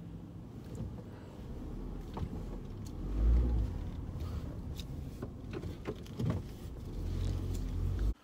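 Car cabin noise while driving: a steady low engine and road rumble, swelling into a loud low surge about three seconds in, with a few faint clicks. It cuts off suddenly near the end.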